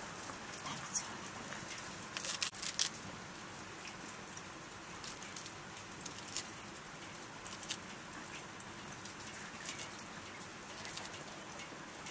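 Leafy greens being sliced by hand against a curved sickle blade: irregular crisp snips, with a cluster of them about two seconds in, over a steady hiss.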